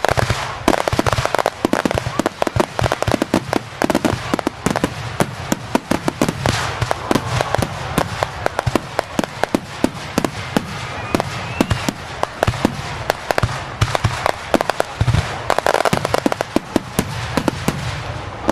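Fireworks display: a dense, continuous crackle of many sharp pops, several per second, over a low rumble of bursts.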